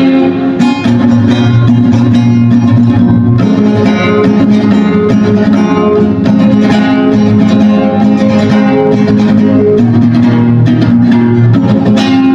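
Guitar strumming chords in a steady rhythm: the instrumental ending of a song, after the last sung line.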